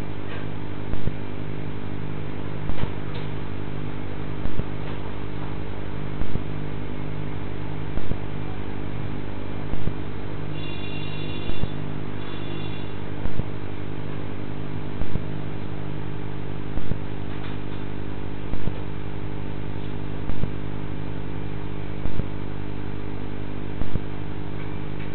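Steady low electrical hum with a sharp click about every second and three-quarters, typical of a CCTV recorder's audio channel. A brief high whine comes in around the middle.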